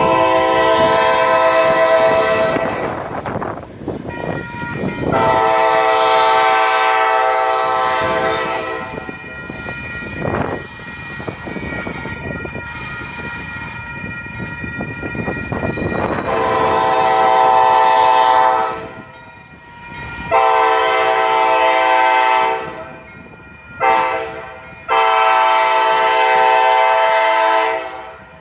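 Air horn of a Kansas City Southern GE AC4400CW locomotive blowing a multi-note chord in repeated blasts: two long ones, then long, long, short, long, the grade-crossing signal. The locomotive's rumble fills the gaps between blasts.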